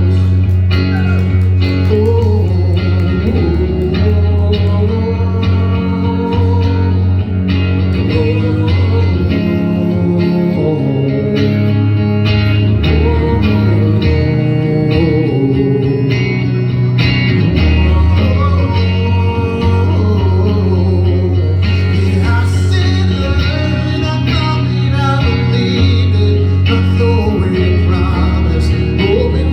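A live rock band playing an instrumental break, with a guitar carrying the melody over a strong bass line and drums.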